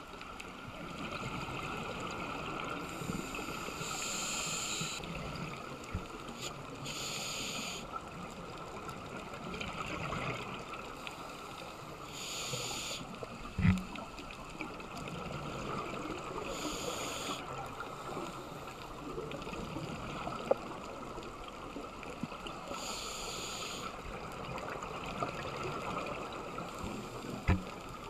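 Underwater sound of a scuba diver breathing through a regulator: a rush of exhaled bubbles every few seconds over a steady underwater hiss. Three sharp knocks stand out, the loudest about halfway through.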